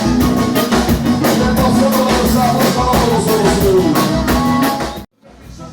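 Live band playing gaúcho dance music with a steady drum beat, between sung lines. About five seconds in the music cuts off abruptly for a moment, then comes back quieter.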